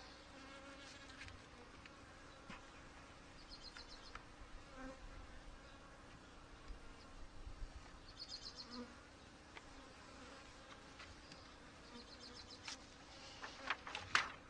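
Honey bees buzzing around an opened hive, a steady faint hum. Scattered light clicks and knocks from wooden hive parts being handled, with a cluster of louder knocks near the end.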